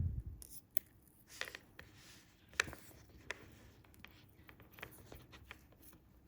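Close handling noises of fishing line being wrapped and pulled around hooks: line rubbing and rustling, with scattered small ticks. There is a soft low bump right at the start and a sharper click about two and a half seconds in.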